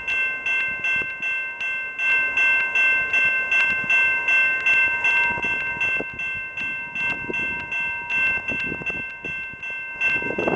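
Railway grade-crossing warning bell ringing steadily with an even ring of about three to four strikes a second, sounding for an approaching freight train.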